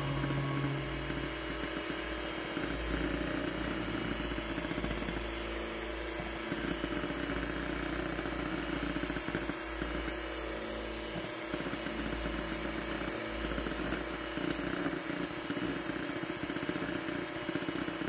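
Luxel electric hand mixer running steadily at one speed, its beaters whipping egg whites into meringue.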